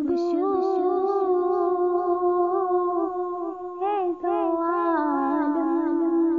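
Woman's voice singing a naat with no instruments, holding long wavering notes in a hummed, wordless line.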